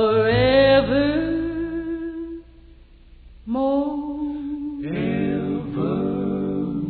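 Country-gospel music with guitar and a gliding melody line. The music drops low for about a second midway, then comes back in.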